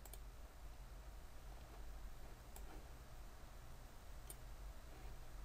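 Three faint computer mouse clicks, spaced a second or two apart, over a low steady hum.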